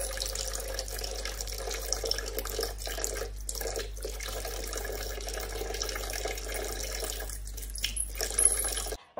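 Kitchen faucet running in a thin stream into a sink, splashing steadily. The splash briefly dips twice a little past the middle as a cat paws at the stream.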